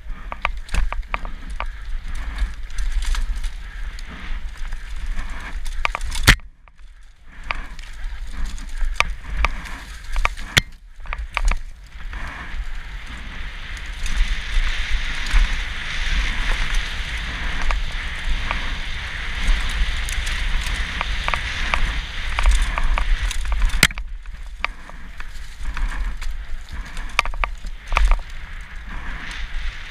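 Mountain bike rattling down a rough forest dirt trail, heard from a helmet camera: a dense clatter of the bike over roots and bumps with tyre noise on dirt, and a steady low wind rumble on the microphone. A sharp crack about six seconds in, and a steadier hiss through the middle stretch.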